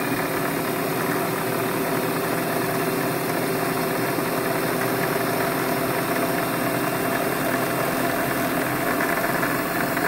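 Electric sewing machine motor running steadily at speed, driving the bobbin winder as the bobbin fills with thread.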